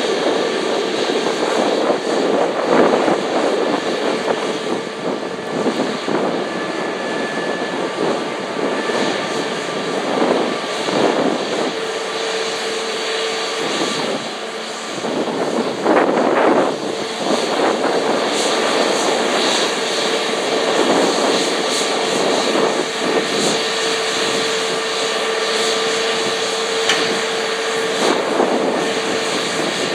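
Airbus A321neo's CFM LEAP-1A turbofan engines running at taxi power: a steady rushing drone with a whine held at one pitch, swelling louder now and then.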